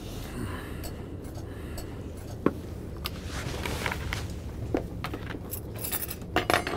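Scattered clinks and light scrapes of dishes and cutlery at a meal, a few sharp ones standing out, over a low steady hum.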